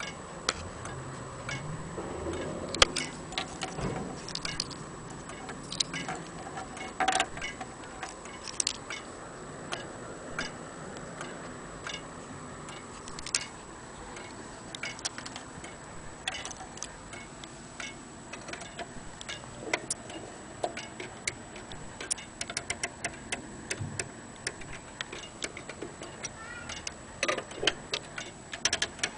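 Antique Vienna wall clock ticking: the escapement of its weight-driven pendulum movement gives a run of sharp clicks.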